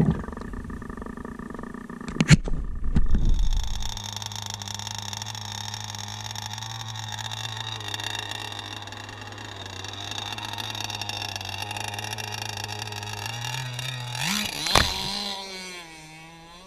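Gas RC hydroplane's two-stroke engine idling steadily, with a loud knock and clatter about two seconds in. Near the end the engine revs up with a rising, wavering pitch as the boat takes off across the water.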